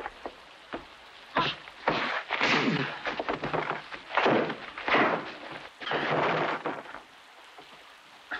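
Fist-fight sound effects: about five heavy punches and thuds of a body hitting wooden chairs and floor, with scuffling between them.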